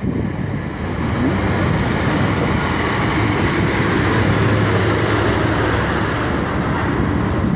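Steady vehicle rumble and engine hum beside a rail track-laying train and its sleeper wagons, with a short hiss about six seconds in.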